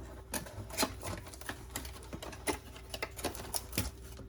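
Irregular light clicks and taps of a box and the plastic and metal parts inside being handled as a pressure washer extension wand is unpacked.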